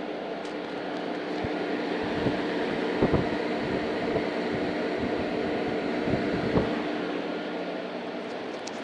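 A machine running steadily: a continuous hum with a low steady tone and a few soft knocks.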